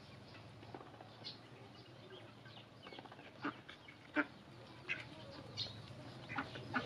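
Domestic ducks feeding together from a plastic tray: a run of quick knocks as their bills peck and dabble in the feed and strike the tray, coming thicker and louder in the second half, with scattered duck calls.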